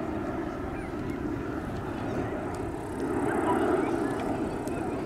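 Jet noise from the Sukhoi Superjet 100's twin SaM146 turbofan engines as the airliner flies past overhead: a steady rumble that swells about three seconds in.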